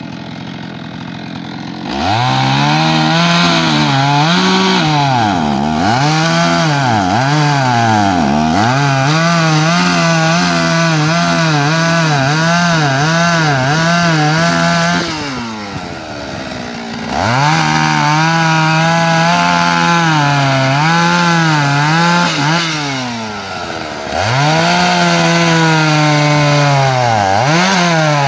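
Shindaiwa 757 two-stroke chainsaw idling, then opened up to full throttle about two seconds in and cutting into a log, its engine pitch dipping and recovering as the chain bites into the wood. It drops back to idle briefly about halfway, then runs at full throttle in the cut again, with a short dip in revs near three-quarters of the way.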